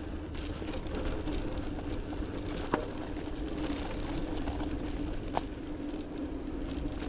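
Mountain bike rolling down a dirt trail: steady tyre and rushing noise with a low hum, and two sharp clicks, one near three seconds in and one a little past five.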